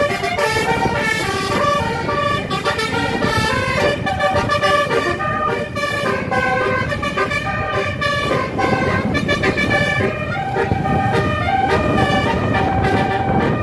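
Bus telolet horn, a multi-tone electric horn of the Basuri type, playing a quick stepping melody of short notes over and over, with the rumble of the bus underneath.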